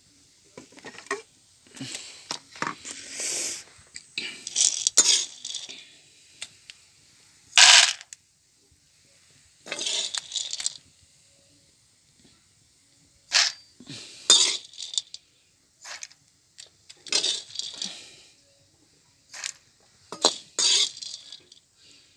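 Metal slotted ladle scraping a blackened wok and tipping popped corn into a stainless steel pot: a run of scrapes, clinks and rattles with short pauses between scoops.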